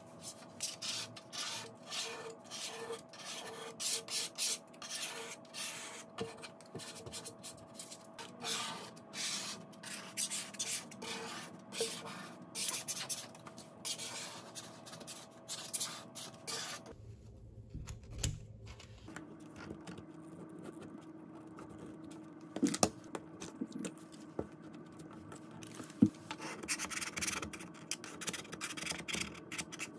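A hand squeegee and a plastic card rubbing in repeated strokes over frosted privacy film on window glass, smoothing the film flat and pressing it into the frame edges. A few sharp clicks stand out in the second half.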